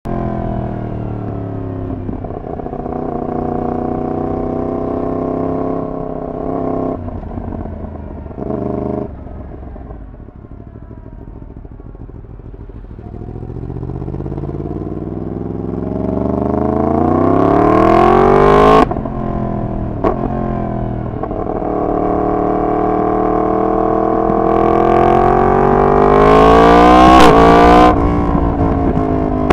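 Yamaha MT-10's crossplane inline-four, through a decat full exhaust system, under way: the engine runs fairly steadily at first, then revs up in two long pulls, each cut off with a sudden drop in pitch, about two-thirds of the way through and near the end.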